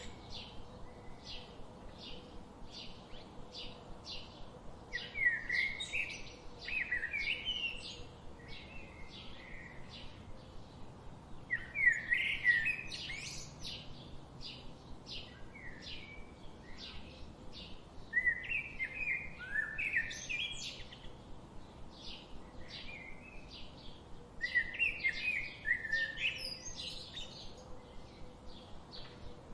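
Songbirds singing: one bird repeats a short warbling song phrase four times, about every six seconds, over a steady run of short high chirps, about three a second, from another bird.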